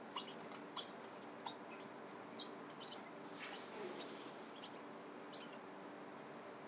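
Faint, irregular high chirps over a steady low hum, with three sharp ticks in the first second and a half.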